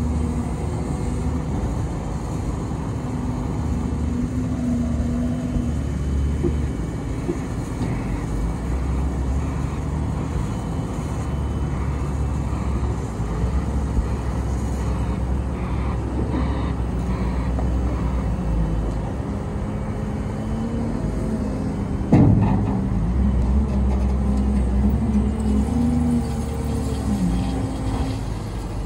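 Caterpillar 930H wheel loader's diesel engine running, its revs rising and falling in stretches as the hydraulics raise, curl and lower the bucket. A single sharp clunk comes about 22 seconds in.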